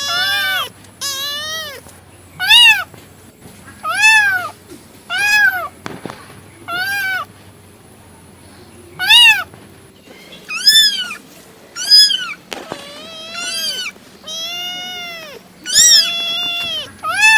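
Domestic cat meowing over and over: about a dozen separate meows, each rising then falling in pitch, with a pause of about two seconds midway and a few longer, drawn-out meows near the end.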